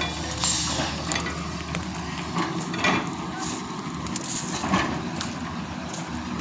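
Heavy diesel construction-machine engine running steadily, with scattered sharp knocks and clatters from material being worked.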